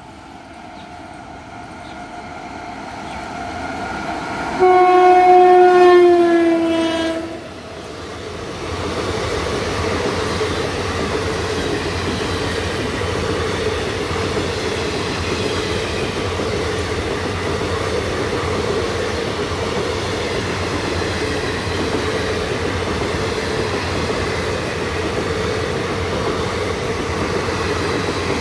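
Indian Railways goods train of automobile-carrier wagons passing at speed. The locomotive approaches, growing louder, and sounds one long horn blast about five seconds in that drops in pitch near its end as it goes by. A steady rumble of the wagons' wheels on the rails follows.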